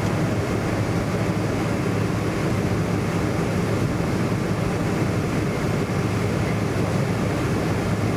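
Steady drone of a Boeing 747 jetliner heard from inside the passenger cabin: an even rush of engine and air noise with a low hum underneath.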